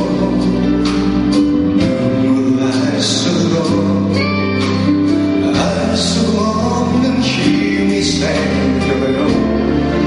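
A man singing live into a handheld microphone over band accompaniment, with cymbal-like splashes now and then.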